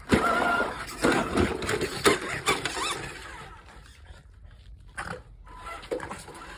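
A Frenchton dog (French bulldog–Boston terrier cross) grunting and breathing hard in short bursts during play, busiest in the first three seconds, then quieter.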